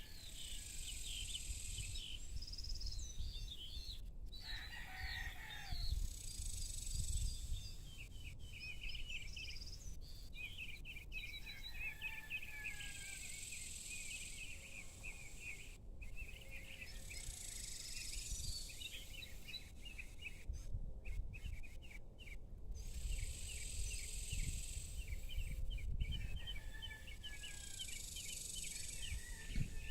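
Evening birdsong: several small birds chirping and twittering continuously, over a low steady rumble.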